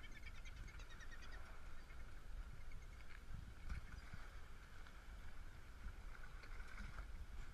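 Low rumble of wind and water on the microphone at the sea surface, with faint seabird calls chattering in the first second or so.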